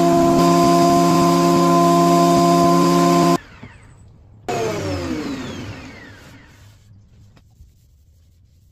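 Benchtop thickness planer running at full speed with a steady whine, cutting off suddenly a little over three seconds in. After about a second it is heard again winding down, its whine falling in pitch and fading over about two seconds.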